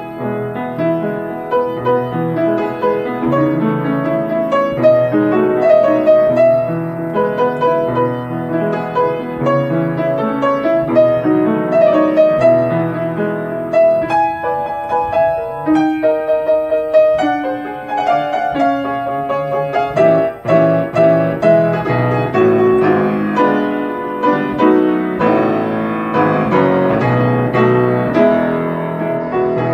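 Background solo piano music, a flowing piece with many notes and a passage of repeated chords around the middle.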